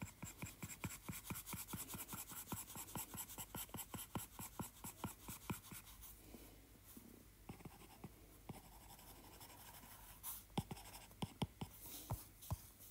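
Stylus tip tapping and scratching on an iPad Pro's glass screen in quick short strokes, several ticks a second, pausing about six seconds in and picking up again with a few scattered taps near the end.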